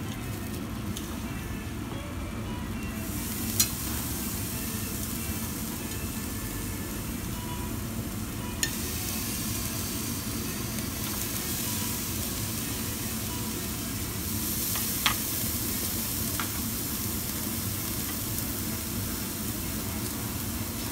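Meat sizzling on a yakiniku tabletop grill's wire mesh as pieces are laid on with tongs. The sizzle grows louder about three seconds in, and there are a few sharp clicks of the tongs against the grill.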